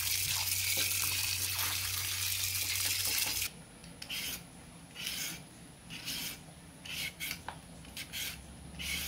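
Tap water running steadily into a bowl of sweet potatoes, cut off abruptly about three and a half seconds in. Then a handheld vegetable peeler scrapes the skin off a sweet potato in short, irregular strokes, about one a second.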